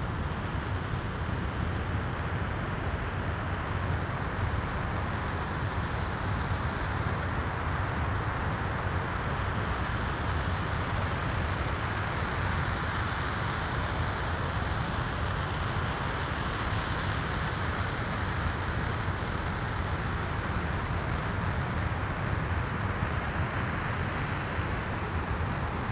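RS-25 liquid-hydrogen/liquid-oxygen rocket engine firing at steady thrust on a static test stand during a hot-fire test: a continuous, even rush of noise with a deep rumble underneath, holding steady without a break.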